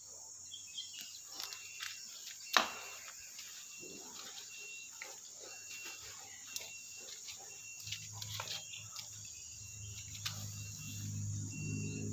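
Insects chirping in a steady on-off pulse, with scattered clicks and one sharp knock about two and a half seconds in. From about eight seconds a low engine hum comes in and grows louder.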